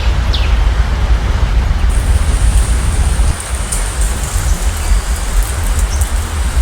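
Steady rain falling, with a heavy low rumble underneath and scattered drop ticks. A single falling bird note sounds right at the start, and a steady high hiss joins about two seconds in.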